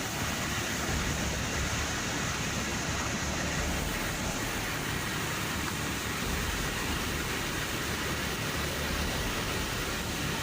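Steady, even rushing noise with no pauses or sudden sounds.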